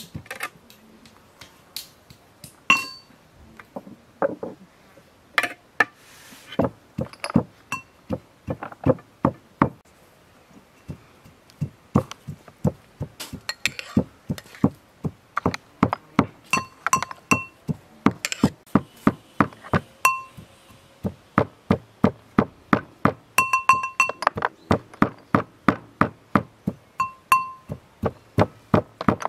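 Pestle pounding in a mortar, a steady run of sharp knocks about two to three a second, with a few ringing clinks now and then.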